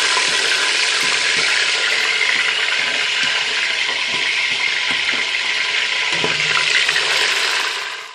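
Fish frying in hot oil in a stainless steel pot, a steady sizzle that stops abruptly at the end.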